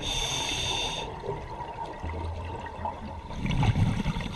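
Scuba diver breathing through a regulator underwater: a hissing inhalation for about the first second, then a rumbling rush of exhaled bubbles about three and a half seconds in.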